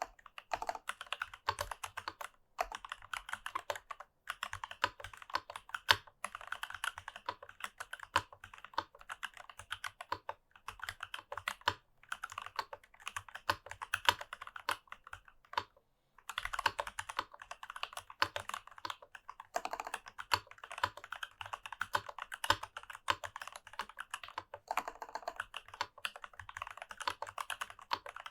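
Continuous fast typing on a mechanical keyboard: stock, unlubed C3 Tangerine linear switches in a Rama Works U80-A with a brass plate and GMK keycaps. Rapid runs of clacks are broken by brief pauses, with now and then a louder stroke, likely the lubed space bar or another stabilized key.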